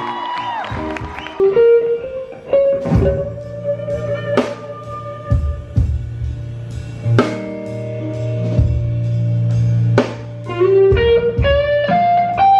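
Live band playing a slow blues-rock passage: an electric guitar plays a lead line with notes sliding up, over a held bass note and a slow drum beat.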